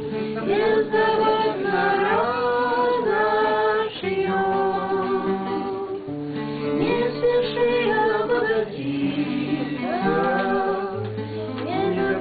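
Several voices singing a slow song in harmony, with long held notes that move together in steps; a woman's voice is among them.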